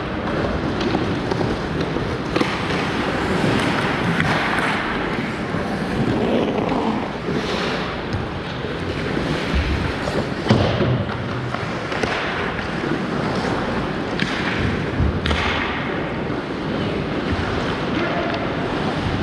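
Ice hockey in play: skates scraping the ice and a steady wash of rink noise, with sharp stick-and-puck clacks and knocks every few seconds.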